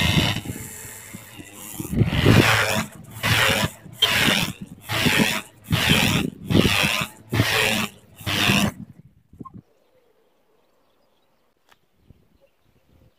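Honda Dio AF27 scooter's 50 cc two-stroke engine revved in about eight bursts, roughly one a second, while the rear tyre spins and scrubs on asphalt. It stops suddenly about nine seconds in, leaving near silence.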